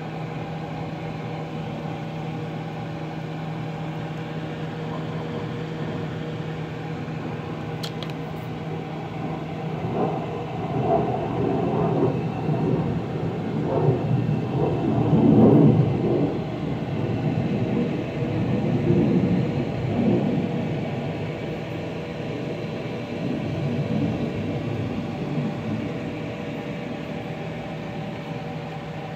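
A steady machine hum made of several fixed tones, with a louder, uneven rumbling stretch through the middle.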